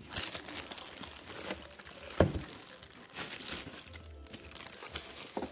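Clear plastic wrapping crinkling as a boxed toy karaoke machine is handled and unwrapped, with one sharp knock about two seconds in.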